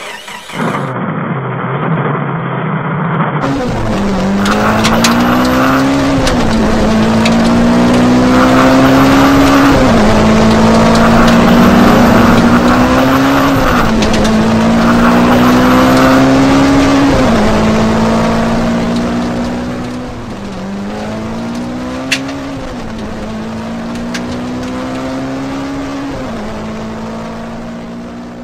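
Racing off-road truck engine, running low and steady at first, then accelerating through the gears: its pitch climbs and drops back at each shift, again and again, easing off in the last third, over a continuous hiss.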